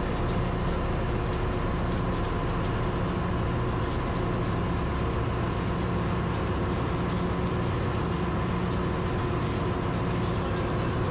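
Steady drone of running machinery in a ship's engine room: a low hum that swells and fades slowly, under a constant high whine.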